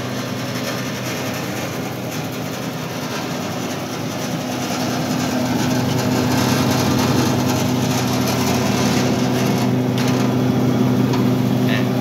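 Paddy-grain cleaner with blower fan and sifting screens running empty, its half-horsepower Mitsubishi electric motor keeping up a steady hum with the rush of the fan. The sound gets louder about five seconds in.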